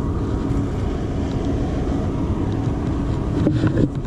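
A steady low engine drone with a faint constant hum.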